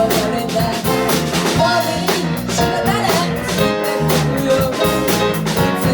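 Live rock band playing an upbeat Shōwa-era pop song: electric guitar, bass and drum kit with a steady beat, a wavering lead line riding over the top.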